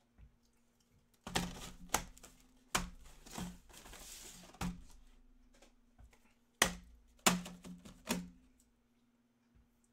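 A string of sharp, irregular taps and clacks of objects handled on a tabletop, with a short rustle about four seconds in. There is a faint steady hum underneath.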